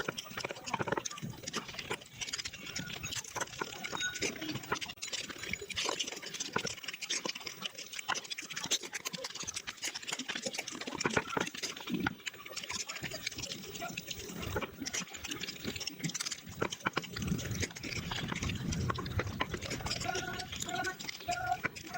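Close-miked mukbang eating sounds sped up about five times: a dense, unbroken run of quick wet chewing, smacking and slurping clicks. A few short high blips come near the end.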